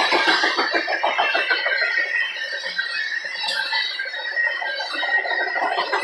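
Freight train of loaded open-top trash cars rolling past at trackside: a rapid, dense clatter of steel wheels on rail joints and rattling car bodies, with a steady high-pitched squeal running through it.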